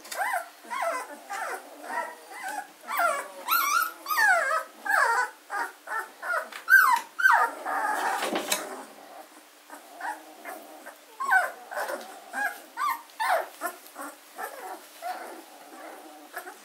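A litter of 14-day-old German shorthaired pointer puppies whimpering and squeaking: a steady stream of short, high cries that rise and fall in pitch.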